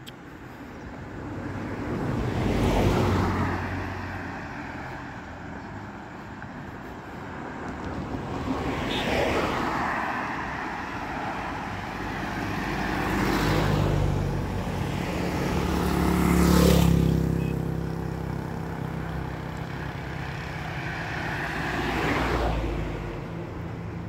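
Cars passing one after another on a road, about five pass-bys, each swelling in and fading out with tyre and engine noise. The loudest pass comes about two-thirds of the way through.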